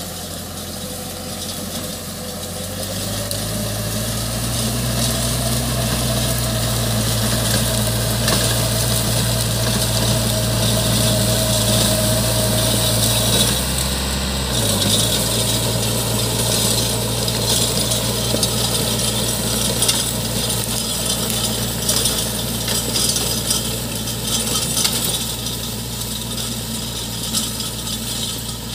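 VST Branson compact tractor's diesel engine running steadily under load while its rotavator churns through dry stubble and soil. The engine note rises a few seconds in and changes briefly about halfway through.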